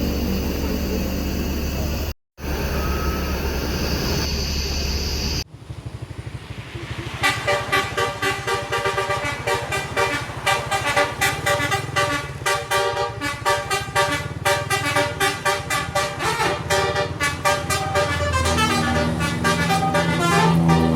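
A bus's telolet horn, a set of multi-tone air horns, playing fast runs of changing notes like a tune, starting about a third of the way in. Before it comes a steady rumble of engine and road noise, broken by a short dropout near the start.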